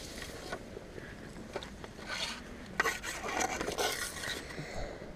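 Irregular rubbing and scraping with scattered sharp clicks, busiest from about two seconds in until shortly before the end.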